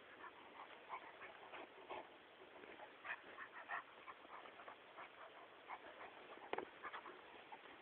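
Dogs at play, faint short yips and whimpers coming several times a second, with one louder sharp sound about six and a half seconds in.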